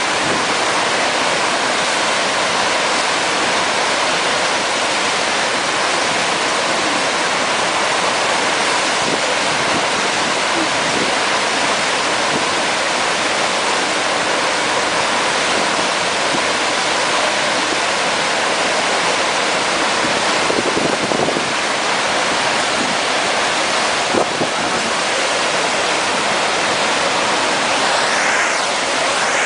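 Loud, steady rush of water pouring up a surf simulator's slope, churning into a standing wave under a rider's board.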